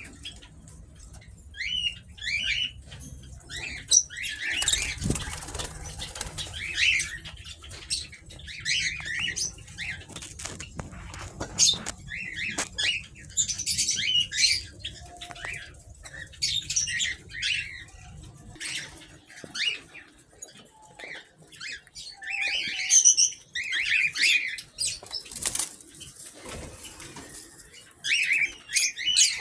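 A mix of small aviary birds chirping and squawking, with wings flapping. A low rumble sits under them for the first two-thirds, then stops.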